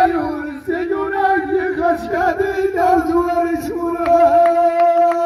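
Men's voices singing a long-held chanted line together, amplified through microphones. Quick sharp taps at about five a second join in about four seconds in.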